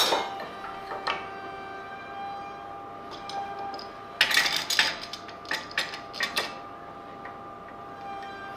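A wooden piece knocked down onto a workbench, then a quick run of metal clicks and clacks about four to six and a half seconds in as a steel F-clamp is slid into place and its handle screwed tight against the wood.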